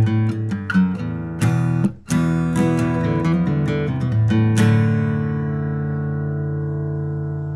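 Acoustic guitar music: a quick run of plucked notes and strums, a brief break about two seconds in, then a last chord that rings on and slowly fades.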